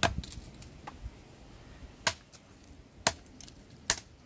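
SOG Tech Bowie knife, a thick AUS-8 steel blade, chopping into green hardwood at an angle: four sharp chops, the last three about a second apart.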